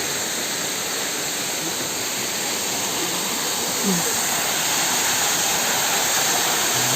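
Waterfall: a steady rush of water cascading over rock ledges, a little louder from about four seconds in.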